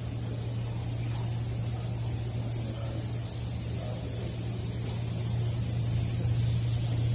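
Diesel generator running with a steady low hum and a hiss, growing slightly louder toward the end.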